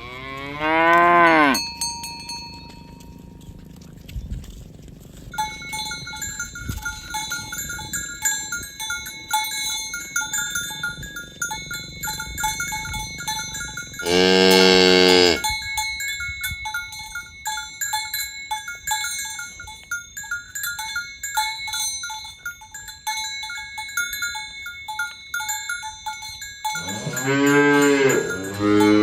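Cattle mooing: a long moo about a second in, another around the middle, and two more close together near the end. Between them several cowbells clank and ring irregularly from about five seconds in, as the herd walks.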